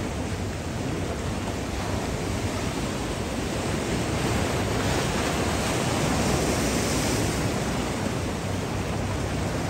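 Rough sea at high tide: a continuous wash of surf breaking and surging over shore rocks, growing a little louder about halfway through.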